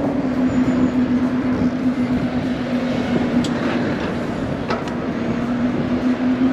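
Riding noise from a bicycle on the move: a steady rush of wind on the microphone over a constant droning hum, with two faint clicks in the middle.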